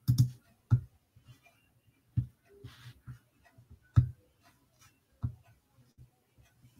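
Scattered, irregular clicks and knocks, each with a dull low thud: about five louder ones spaced a second or so apart and fainter ticks between, with a short rustle near the middle.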